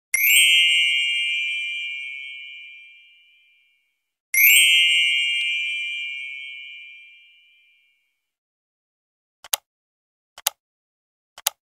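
Two bell-like ding chimes, each struck suddenly and ringing out over about three seconds, the second about four seconds after the first. Then three short clicks about a second apart, a mouse-click sound effect.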